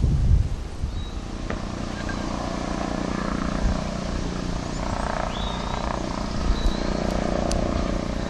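A steady low engine hum, with a few short high chirps from birds. Wind rumble on the microphone dies away about half a second in.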